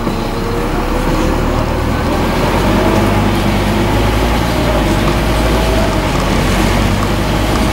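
Scania N230UD double-decker bus under way, heard from the upper deck: the five-cylinder diesel engine and drivetrain run with a steady low drone, and a faint whine rises in pitch twice as the bus pulls along.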